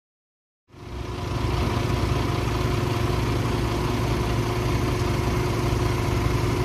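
An engine running steadily without revving, fading in from silence within the first second.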